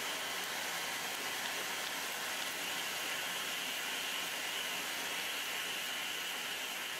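Sandpaper rubbed by hand over the old finish of an ash-veneered chipboard cabinet door, a steady scratchy hiss.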